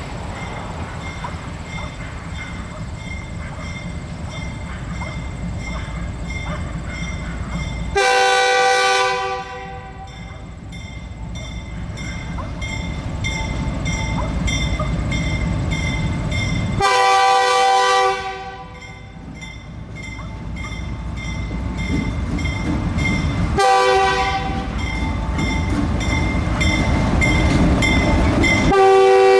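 Diesel freight locomotives of the Finger Lakes Railway approaching and passing, with a steady engine rumble that grows louder as they near. A multi-chime air horn sounds four times: two long blasts, a short one, then a long one starting near the end, the standard long-long-short-long grade-crossing warning.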